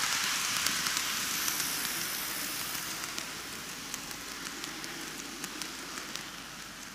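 N gauge model train of Keikyu 2100 series and new 1000 series cars running on curved TOMIX cant track: a steady hiss of wheels and motor that fades as the train moves away, with scattered light clicks from the wheels on the track.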